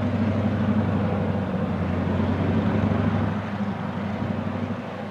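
EMD GP38-2 diesel-electric locomotive's 16-cylinder two-stroke engine running with a steady low throb as it works a string of hopper cars, getting somewhat quieter over the last second or so.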